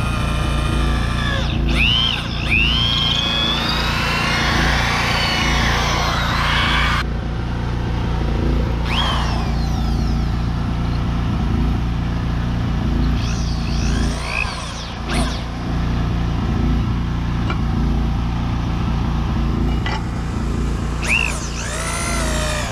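Corded electric drill boring an auger bit into a pine timber beam, its motor pitch rising and falling several times as it speeds up and slows in the cut. A steady low hum from a generator runs underneath.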